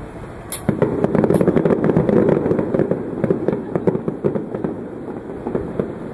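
Fireworks display: a dense crackling rattle of many bursts sets in about half a second in, with a couple of sharp pops at the start. It is loudest for the first few seconds, then thins out toward the end.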